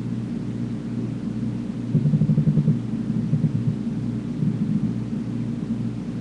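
Striped Raphael catfish (Platydoras armulatus) making a rumble, a rapid pulsing of about ten beats a second that lasts under a second, about two seconds in, with weaker pulsing shortly after, over a steady low hum. It is the night-time rumble this catfish makes, which the owner takes to mean mostly "get out of my way, other fish".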